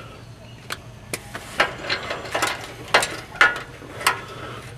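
Hand ratchet wrench clicking in short, irregular strokes as a socket backs off the rusty nuts on the catalytic converter's front exhaust flange.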